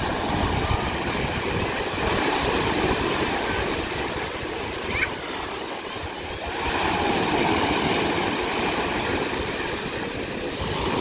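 Small sea waves breaking and washing up the shore in a steady surf, which eases a little near the middle and swells again about six and a half seconds in.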